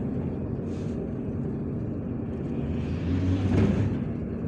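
MAZ 103 city bus running steadily, heard from inside the passenger cabin. A louder swell of rushing noise builds about three seconds in and then fades.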